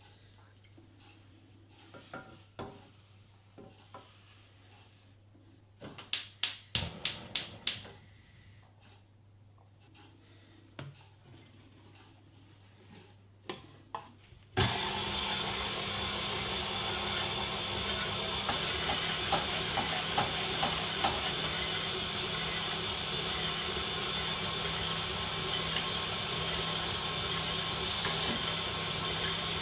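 A gas hob's spark igniter clicks about seven times in quick succession. About halfway through, an electric stand mixer with a wire whisk starts abruptly and runs steadily, whisking egg whites with a motor whir and hum.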